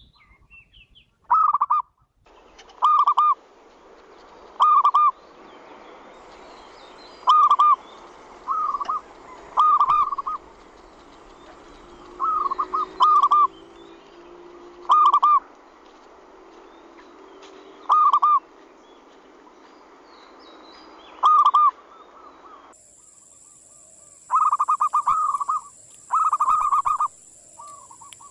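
Zebra doves (perkutut) cooing their manggung song, short clipped coos one every one to three seconds, then longer runs of quick coos near the end. This is a lure song used to set other zebra doves cooing.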